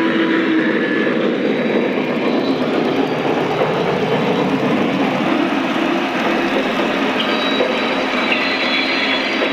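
Lionel Visionline Class A O-scale model steam locomotive running on track, a steady, even rumble of wheels and drive mixed with its sound system's steam effects.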